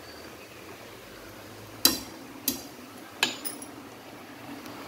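A metal ladle knocking three times against a stainless steel pot, each a sharp clink with a brief ring, the first the loudest.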